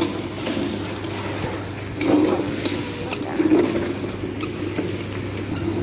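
Light clicking and clattering of small hard objects over a steady low hum, with two louder sounds about two and three and a half seconds in.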